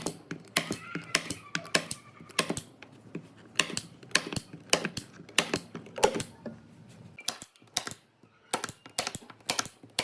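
Quick, irregular sharp clicks and light knocks, several a second, with a short pause a little before eight seconds in.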